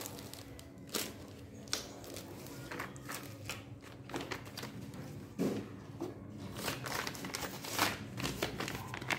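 Packaging being handled and unwrapped: irregular crinkling and rustling with scattered sharp clicks and taps.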